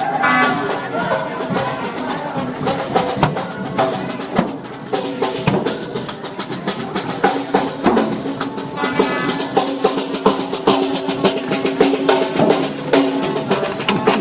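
Music with drumming: a run of quick drum strikes under held pitched tones.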